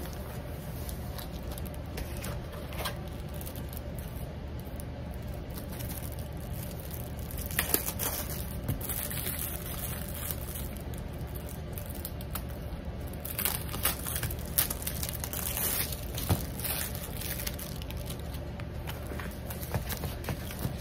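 A rolled diamond painting canvas and its plastic cover being handled on a table: intermittent crinkling and rustling, in clusters about a third of the way in and again past the middle, with a few light taps.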